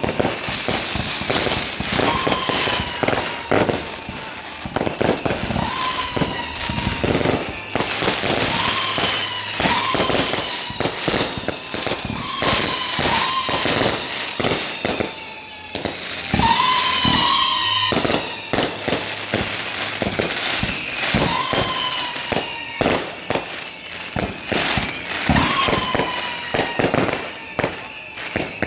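Fireworks display: a dense barrage of sharp bangs and crackling reports, with short whistling tones that fall slightly in pitch recurring about every two seconds.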